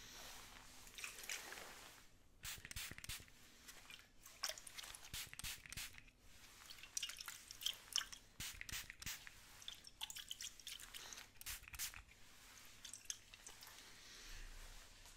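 Comb and spray-bottle sounds: irregular clusters of sharp crackly clicks from comb strokes, with a soft hiss of spraying in the first couple of seconds and again near the end.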